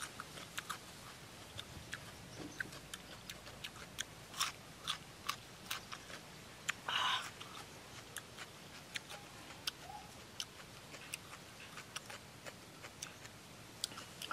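Close-up chewing of a mouthful of crisp raw green vegetable, heard as irregular crunchy clicks. There is one short hiss about seven seconds in.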